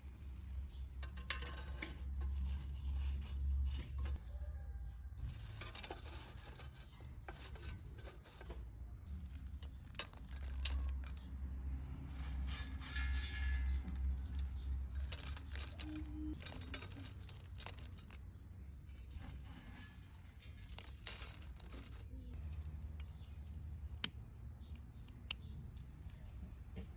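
Repeated rasping scraping strokes on metal, each a second or two long with short gaps, over a low steady hum, with a couple of sharp clicks near the end.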